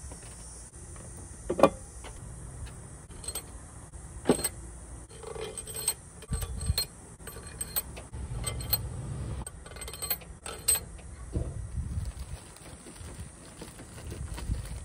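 Metal engine parts and tools being handled, with scattered sharp clinks and knocks and a few dull thumps, as the passenger-side cylinder head is set back onto the engine.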